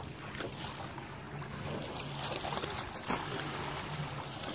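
Steady wash of wind and gently lapping shallow sea water at the shoreline, with a low steady hum underneath and a few faint voices.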